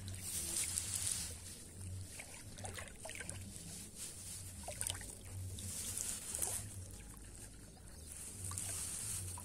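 Boat moving across a wide river: a steady low hum under the hiss and splash of water along the hull, with the splashing swelling near the start, around six seconds in and again near the end.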